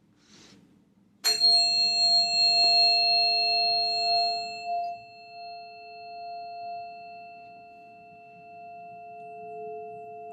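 Sound-healing tuning forks struck about a second in with a bright clang, then ringing on as steady pure tones. The high overtones die away within a few seconds, while two lower tones sustain, gently swelling and fading.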